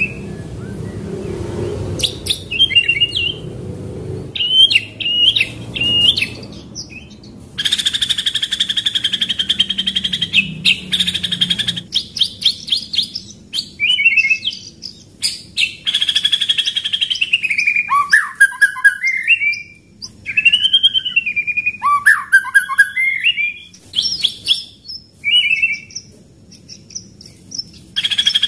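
White-rumped shama (murai batu) singing a loud, varied song of whistled phrases. A long, fast rolling trill runs from about eight to twelve seconds in, followed by sharp clicking notes and then looping, slurred whistles that rise and fall.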